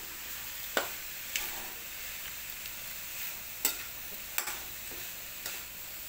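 Metal spatula stirring grated coconut and sugar in a steel wok on the stove: a steady faint sizzle with about half a dozen sharp clacks as the spatula strikes the pan.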